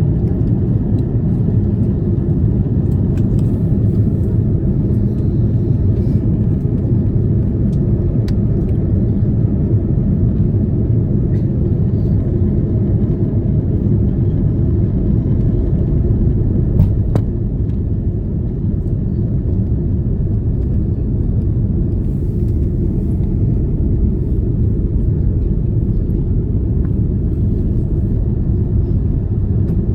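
Steady low rumble of an Airbus A330 airliner in flight, heard from inside the passenger cabin: engine and airflow noise running evenly.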